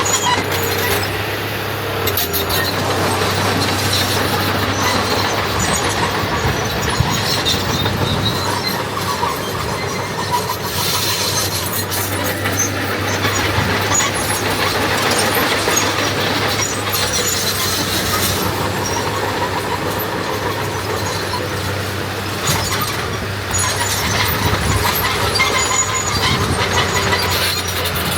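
Diesel earthmoving machinery running steadily under load, a constant low engine drone with metallic rattling and clanking over it.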